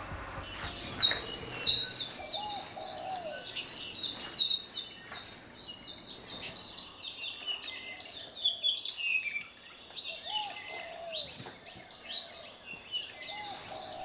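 Several birds chirping and singing, with quick high twittering calls throughout. A lower call that rises and then falls is heard three times.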